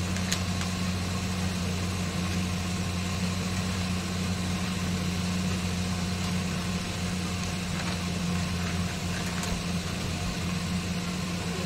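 A steady low electrical hum from a running appliance motor, with a constant hiss over it. A plastic flour bag crinkles faintly now and then as it is emptied into a steel container.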